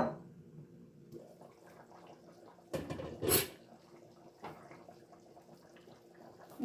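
A glass lid is taken off a pan of curry on a gas stove and set down with a short clatter about three seconds in. Before that there is a light clink at the start and a faint steady hum underneath.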